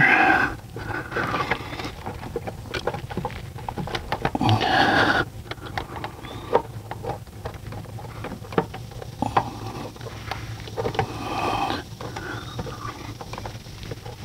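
Hands fumbling behind the intake plenum of a Mazda CX-9's 3.5-litre V6, pulling a hose and working an electrical connector loose: irregular small clicks, taps and plastic scraping, with a few longer rustles.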